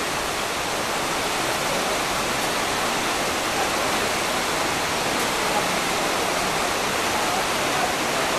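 Shallow river rushing over rocks, a steady even noise of flowing water.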